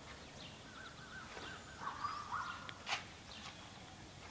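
Faint bird chirps and calls, with a single sharp click about three seconds in.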